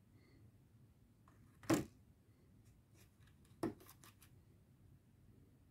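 Tumbled stones clicking against a thin plastic tray as one polished stone is set into its compartment and another is lifted out: two sharp clicks about two seconds apart, with a few fainter taps around the second.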